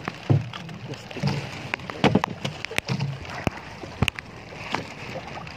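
Water slapping and sloshing against the hull of a small outrigger fishing boat, with scattered sharp clicks and knocks and a few low thuds.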